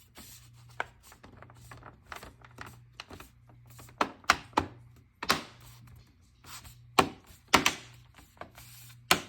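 Plastic bottom cover of an HP Pavilion laptop being pressed around its edges, its clips snapping into place in a series of sharp clicks and knocks, the louder ones from about four seconds in.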